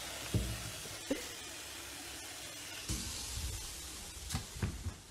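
Steady hiss of tap water running into a plastic bowl in a sink, with a few soft knocks.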